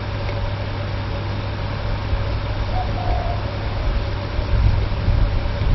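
Steady low hum over a constant background hiss, unchanging throughout.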